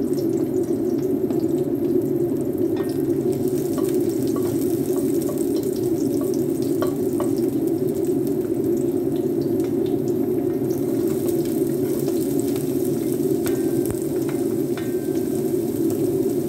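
Chopped garlic and then red onion sizzling in hot olive oil in a pan, with light taps and scrapes of a wooden spatula. Underneath runs a steady low rushing noise.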